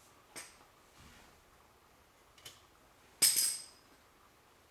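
Metal clinking as tools and brake parts are handled: a light tap about half a second in, another about two and a half seconds in, then a loud ringing metal clink just after three seconds that dies away within half a second.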